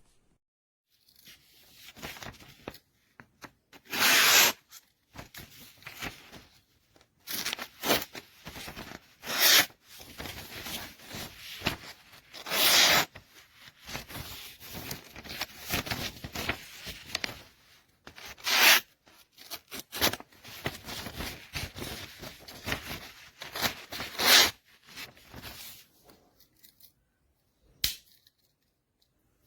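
Victorinox Hiker Swiss Army knife being handled while someone tries to pry out a stiff tool: irregular scraping and rubbing with several louder sharp bursts. The stiffness comes from the pivots being dry and poorly greased.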